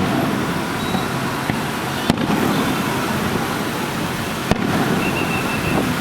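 Aerial fireworks bursting over a steady, dense rumble: two sharp bangs stand out, about two seconds in and about four and a half seconds in, with a few fainter pops between.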